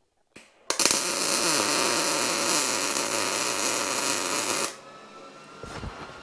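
Arc welder tacking a steel hanger bar to an exhaust pipe: a short sputter as the arc strikes, then one continuous loud weld of about four seconds that cuts off suddenly, leaving a faint steady hum.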